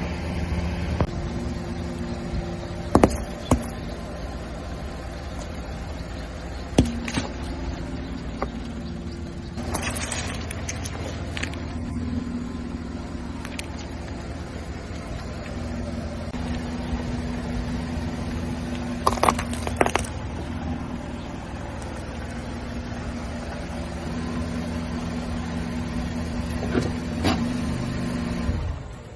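Car engine running steadily while the car rolls over Coca-Cola cans and bottles, with a handful of sharp cracks and crunches as they are crushed under the tyres, the loudest about three seconds in and around twenty seconds in. The engine sound drops away suddenly near the end.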